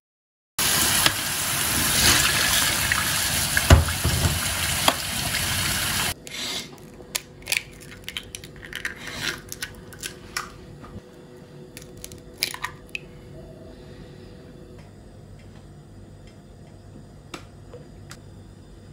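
A loud, steady rush of noise for about five seconds that cuts off abruptly. Then scattered light clicks and taps as eggs are cracked into a ceramic bowl.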